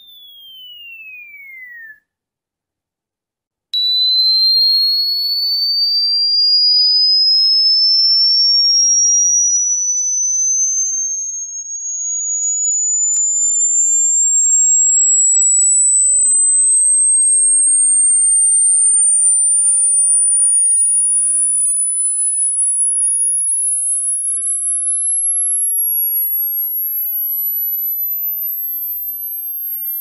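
Synthesized high-frequency sine tone, played as a cricket repellent. A falling whistle stops about two seconds in. After a short silence, a single pure tone rises slowly and steadily to a very high pitch. Near the end a second, fainter tone glides down from even higher.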